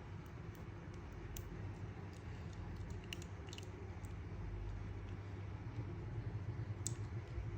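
A few faint, sharp clicks and taps from an action figure and its plastic packaging being handled, over a steady low hum.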